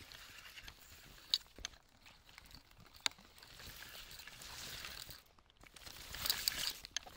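Outdoor ambience: a soft, even hiss that swells twice, with a few sharp clicks, most of them close together near the end.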